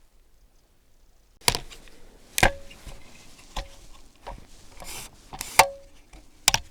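Handling noise from camera gear: a string of sharp, irregular knocks and clicks, some with a brief ringing, starting about a second and a half in.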